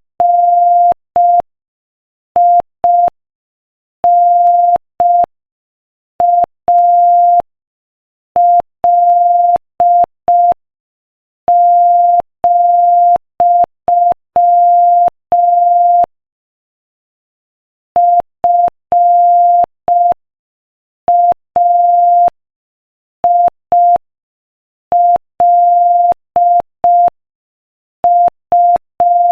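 Morse code practice at 5 words per minute: a single steady mid-pitched beep keyed on and off into short dots and longer dashes, with a pause of about two seconds between two groups.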